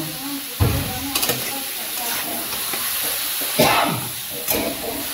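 Metal spatula stirring and scraping mushrooms in a kadhai over a steady frying sizzle, with several separate scrapes against the pan.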